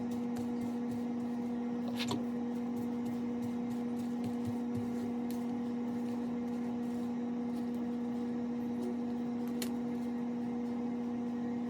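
A steady low hum holding one pitch, with a couple of faint clicks.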